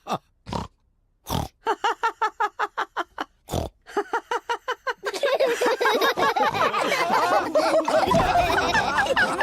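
Cartoon pig characters snorting in a quick run of short snorts, about four or five a second, then several characters laughing together from about halfway through.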